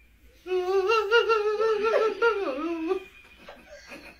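A person's high, wavering voice, held for about two and a half seconds with a fast quiver in pitch, dipping lower near the end before it stops.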